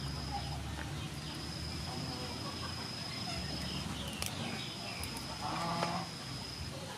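Cooked crab shell cracked open by hand, with a sharp crack a little past halfway. A steady high whine stops and starts behind it, and a chicken clucks briefly near the end.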